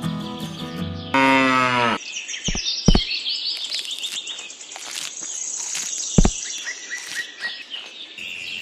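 A cow moos once, about a second in, the call lasting about a second and dropping in pitch at the end. Then birds chirp repeatedly, with a few sharp clicks.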